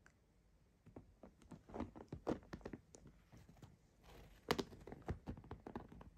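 Irregular taps, clicks and fabric rustles of a soft-sided pet carrier and fleece blanket being handled while cat paws push and scrabble at it. The loudest knock and rustle comes about four and a half seconds in.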